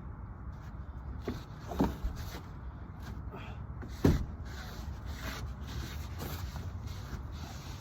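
A plywood subfloor board being worked and pushed into place on a van floor: scattered knocks and scrapes, with one heavy thump about four seconds in.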